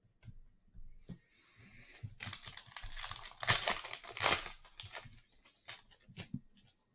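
Foil wrapper of a trading-card pack crinkling and tearing as it is handled and opened, loudest in the middle, with a few short crackles near the end.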